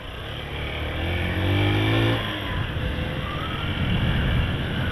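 Motorcycle engine accelerating out of a corner: its pitch rises for about a second, drops suddenly at a gear change a little over two seconds in, then carries on pulling at lower revs.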